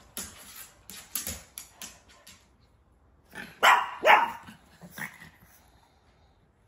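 A dog barks twice in quick succession about three and a half seconds in, then once more, more weakly, a second later. Before the barks come a run of short rustling, scuffling noises.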